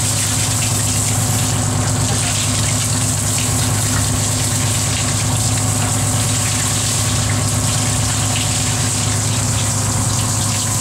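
Steady low drone of a fishing boat's machinery, with an even hiss of running water over it.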